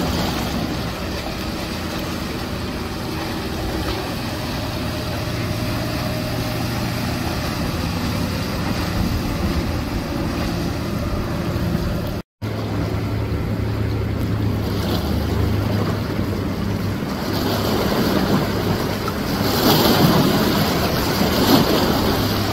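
Outboard-powered center-console boats running past at speed: a steady engine drone with the rush of their wakes. The sound cuts out for a moment about twelve seconds in, and the water rush grows louder near the end.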